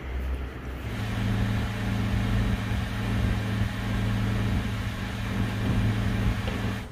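A steady mechanical hum with a rushing noise, starting about a second in and cutting off abruptly at the end, like a vehicle or motor running.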